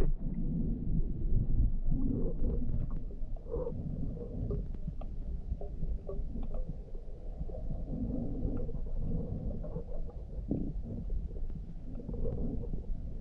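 Underwater ambience: a muffled, uneven low rumble of moving water, with scattered faint clicks.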